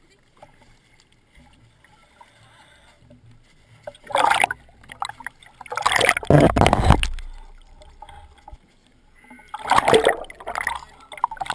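Water sloshing and gurgling around a camera at the surface as it dips in and out of icy water, in three loud bursts, the longest in the middle.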